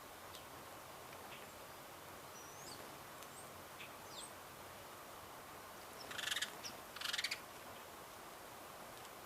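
Small songbirds in a backyard, a few thin high chirps over a steady outdoor hiss, then two short, loud, rough bursts of sound about a second apart.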